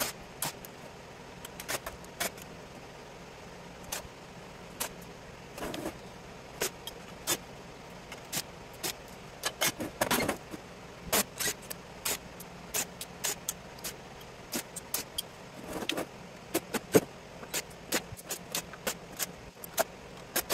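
Sharp metal clicks and clanks of a steel drive chassis and its screws being handled on a workbench, with a few short whirring bursts from a DeWalt cordless driver backing out screws.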